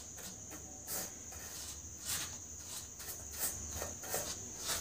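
Steady high-pitched chirring like a cricket, with a few faint, irregular clicks over it.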